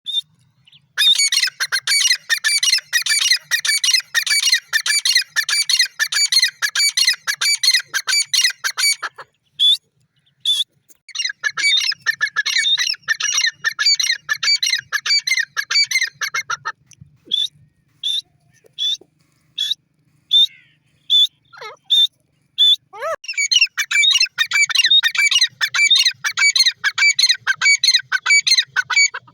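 Grey francolin calling: three long runs of fast, rapidly repeated call notes, each lasting several seconds, separated by single notes spaced about a second apart.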